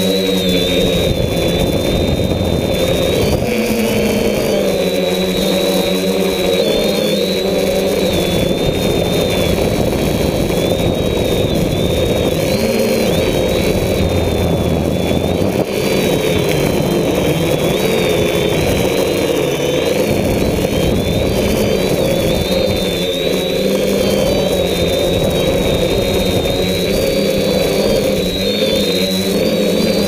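DJI F550 hexacopter's six electric motors and propellers whining loud and steady, the pitch wavering up and down constantly. Heavy wind rush on the onboard microphone underneath.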